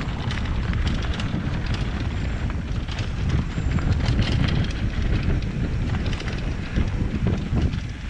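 Wind buffeting a helmet camera's microphone over the rumble of a mountain bike's tyres on a rocky dirt trail at speed, with frequent sharp clicks and rattles from loose stones and the bike.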